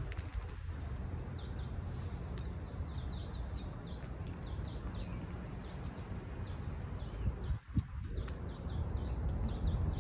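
Small birds chirping over and over, quick short downward chirps, over a steady low rumble of outdoor background noise, with a few scattered sharp clicks.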